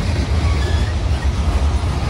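A train rolling past with a steady, heavy low rumble.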